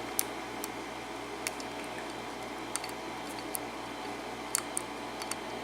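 Faint, irregular light clicks of a metal lock pick tapping and scraping inside the keyway of a Master Lock No. 27 padlock, over a steady low hum.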